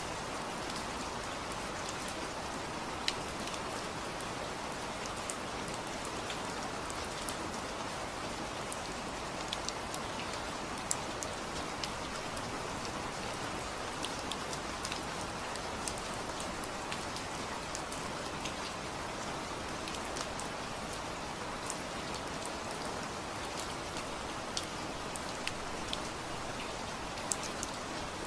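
Steady rain falling, an even hiss with many distinct drops ticking on a surface.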